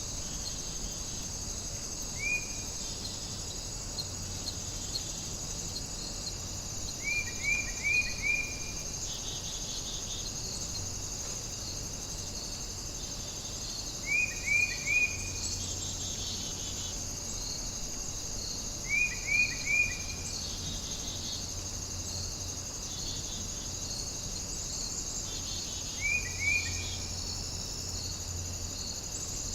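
Crickets and other insects chirring steadily in a warm nature ambience. About every five or six seconds, a short call of three or four quick falling notes cuts through.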